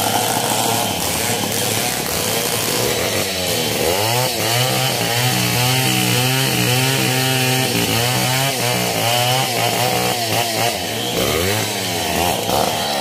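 Two-stroke chainsaw engine running continuously, its pitch wavering up and down.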